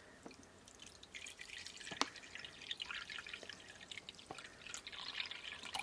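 A thin stream of water pouring into a shallow reptile water bowl, trickling and splashing as the bowl fills, with small sharp drips; the splashing picks up about a second in.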